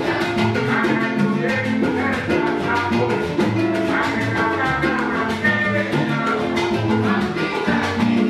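Background music: upbeat salsa-style Latin music with a steady percussion beat and a moving bass line.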